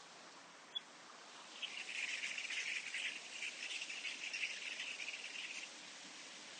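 An insect trilling: a dense, high, pulsing buzz that starts about a second and a half in, holds for about four seconds, then stops. A single short click comes just before it, over a steady background hiss.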